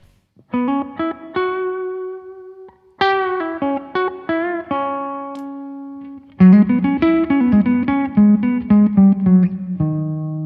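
Electric guitar played through a Blackstar JJN20 MkII amplifier: picked single notes and short phrases with held notes between them. The playing grows louder and busier about two thirds of the way through, then settles on a sustained note.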